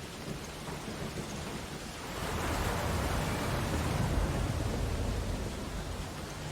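Ocean waves: a steady wash of surf, with a wave swelling and breaking from about two seconds in, loudest around four seconds, then easing back.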